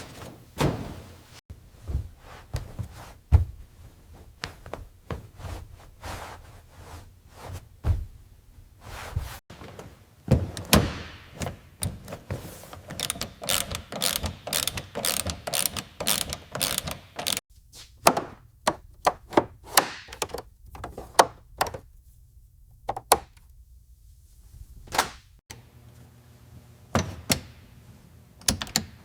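Irregular knocks, thunks and sharp clicks, many in quick succession, with a quiet pause about two-thirds of the way through.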